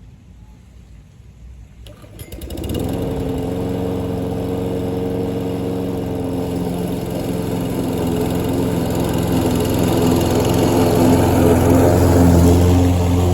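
Troy-Bilt self-propelled lawn mower's engine starting about two seconds in, then running steadily as it mows, growing louder toward the end.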